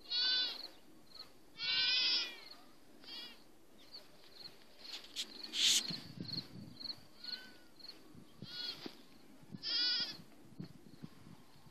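A young goat kid bleating several times, high-pitched, with gaps of a few seconds between calls; the longest and loudest calls come at the start, about two seconds in and near the end. Light rustling and taps in the middle.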